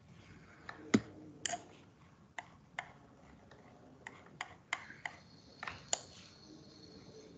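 About a dozen irregular, sharp clicks and taps from working a computer, with one louder knock about a second in and a faint high steady tone in the second half.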